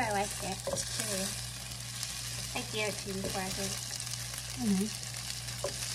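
Fried rice and sausage slices sizzling in a nonstick frying pan, stirred and pushed around with a wooden spatula.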